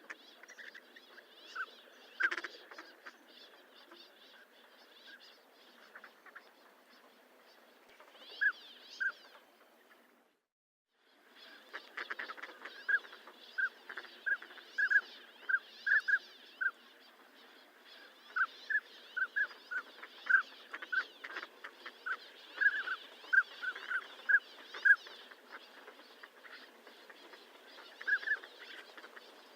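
Northern pintails calling: short whistled notes repeated many times, sparse at first. After a brief silent break about a third of the way in they come in a dense run.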